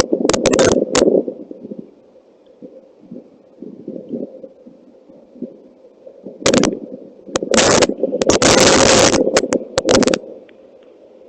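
Strong wind buffeting the microphone: a constant low rumble broken by sudden, loud gusts of rushing noise, a cluster in the first second and a longer run of gusts in the second half.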